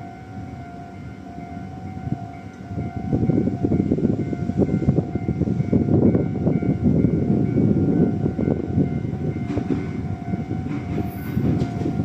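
Railway level crossing warning signals ringing in a steady repeating tone, the pedestrian and road signals drifting out of step with each other. About three seconds in, a passing train's loud rumble joins and becomes the loudest sound.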